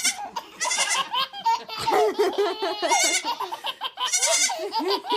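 A baby laughing in a string of repeated belly laughs and giggles.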